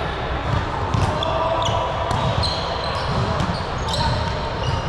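Indoor team ball game on a gym floor: repeated ball impacts and brief high sneaker squeaks, over indistinct voices.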